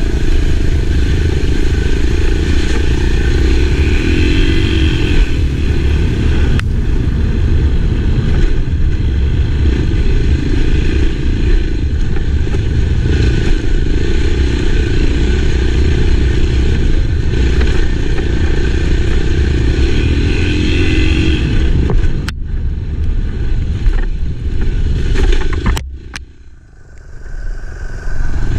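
Enduro dirt bike engine running under way, loud and steady, dropping off briefly near the end before picking up again.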